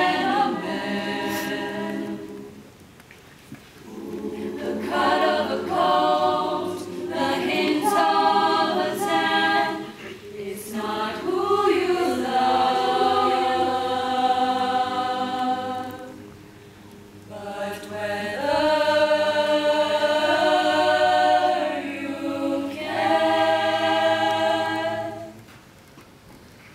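Mixed choir of young female and male voices singing unaccompanied, holding sustained chords phrase by phrase with short breaks between, and dying away near the end.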